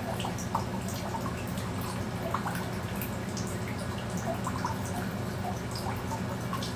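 Water dripping in a steady scatter of small plinks, over a steady low hum.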